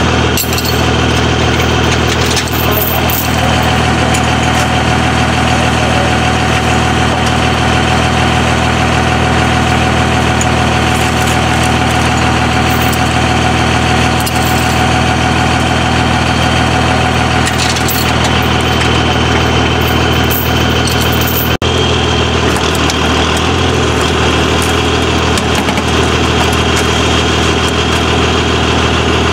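A large vehicle's engine idling steadily, the sound breaking off for an instant about two-thirds of the way through.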